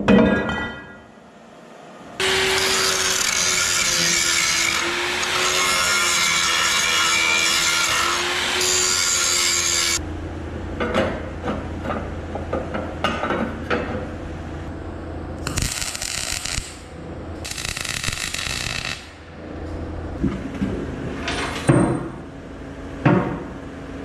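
A power tool cutting into the steel tube of an excavator bucket, running hard for about eight seconds with a wavering whine. Then come irregular knocks and taps on the metal, and two shorter runs of the tool.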